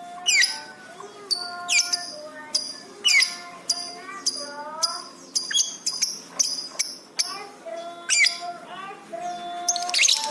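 Lovebird calling in a quick series of sharp, high chirps, each dropping steeply in pitch, about one or two a second, over lower, steadier whistled notes.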